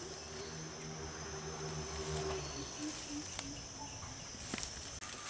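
Insects chirring steadily at a high pitch, with a faint low hum in the first half and a few light clicks.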